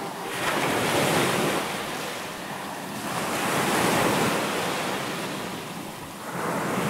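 A rushing noise like surf, swelling twice and easing off again.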